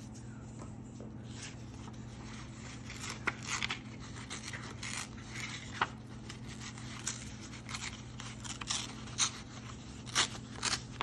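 Old book-page paper being torn by hand in short, irregular rips, with paper crinkling between them.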